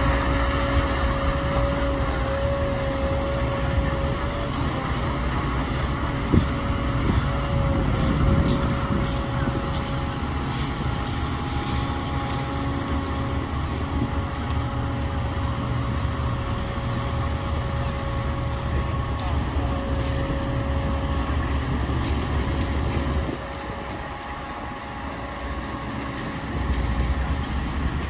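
Diesel engine of a Shannon-class lifeboat's tracked launch-and-recovery tractor running under load as it drives across shingle, a steady low drone with a held whine. It eases off about 23 seconds in and builds up again near the end.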